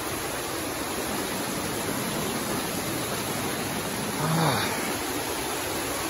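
Fast-flowing floodwater rushing down a stone-lined channel, a steady rush of water. A brief low vocal sound about four seconds in.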